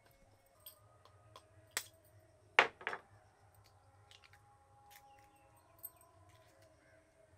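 An egg knocked against the rim of an earthenware bowl and cracked open: two sharp knocks close together about two and a half seconds in, among a few lighter clicks.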